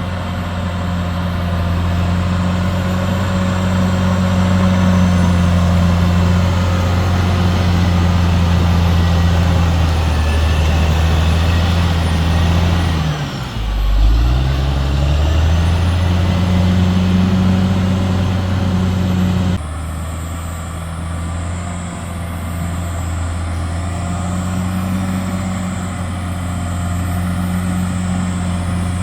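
CAT D6R XL bulldozer's diesel engine running steadily. About halfway through, the engine speed drops sharply and then picks back up, and about two-thirds through the sound changes abruptly.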